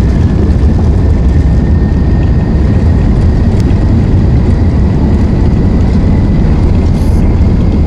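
Airbus A380-842 jet engines (Rolls-Royce Trent 900) at high power heard inside the cabin over the wing during the takeoff roll: a loud, steady rumble with a faint whine that rises slowly in pitch as the aircraft gathers speed.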